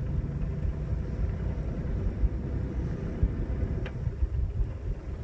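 Low, uneven rumble of wind buffeting the microphone, with irregular gusty peaks.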